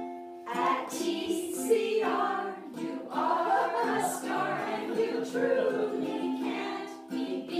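A small women's chorus singing a song together in phrases, accompanied by a strummed ukulele.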